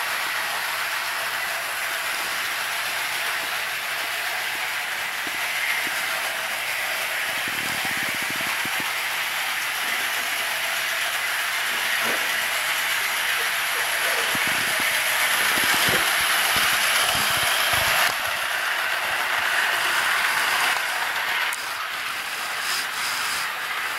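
HO scale model trains running on the track: a steady whirring hiss from the small motors and metal wheels on the rails, with a few soft knocks in the second half.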